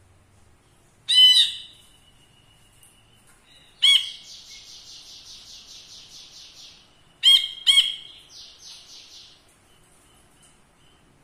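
Caged brinji kelabu, a bulbul kept as a master bird for tutoring other songbirds, singing. A loud ringing call comes about a second in. Around four seconds in a call runs into a fast trill of about three seconds, then two quick loud calls are followed by a shorter trill.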